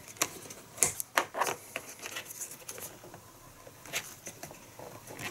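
Short clicks and rubbing scrapes of a plastic window-deflector retention clip being forced into a truck door's rubber weather stripping by hand, close to the microphone. A handful come in the first two seconds, with one more about four seconds in.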